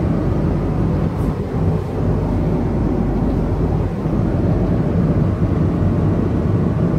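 Airliner cabin noise: the steady low rumble and hiss of the aircraft in flight, with no breaks or changes.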